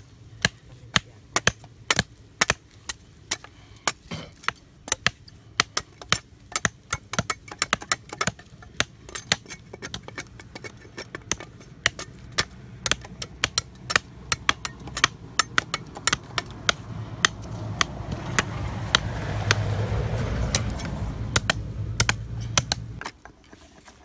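Steel meat cleaver chopping and shaving a forked wooden branch: a long run of sharp knocks of blade on wood, about two to three a second. A rushing noise swells in the last several seconds and cuts off shortly before the end.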